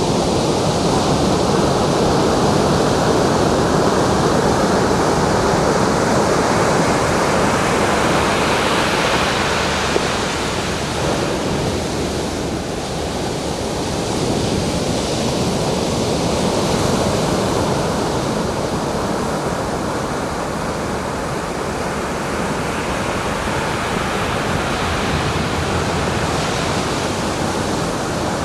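Ocean surf: waves breaking and washing in without a break. The sound swells and eases every several seconds.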